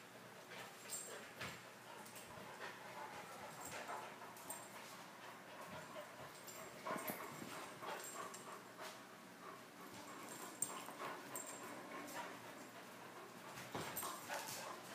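A Great Dane and a boxer puppy play-fighting: scattered knocks and scuffles of paws and bodies on the floor, with a few soft whimpers.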